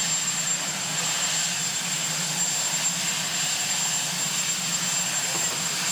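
Sikorsky VH-3D Sea King helicopter running on the ground with its turbine engines going. A steady rushing hum carries a thin, constant high whine throughout.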